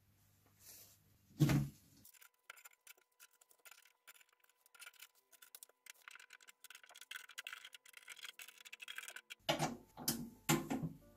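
A snare drum's metal hoop and head being handled and fitted onto the shell: a hollow knock about a second and a half in, then many rapid small clicks and taps of metal hardware, and a few more knocks near the end.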